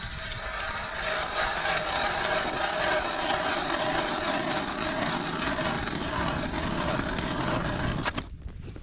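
Hand ice auger with newly replaced blades being cranked through lake ice, a steady grinding scrape as the blades cut. It stops abruptly about eight seconds in.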